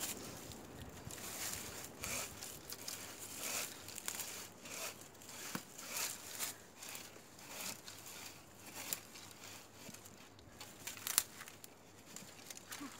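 Hand bow saw rasping back and forth through a thick woody stem at the base of a bush, in uneven strokes of roughly one to two a second, with a sharp click near the end.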